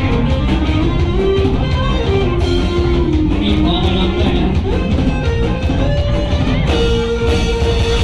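Live rock band playing an instrumental passage: an electric guitar carries the melody with bent notes over bass and drums.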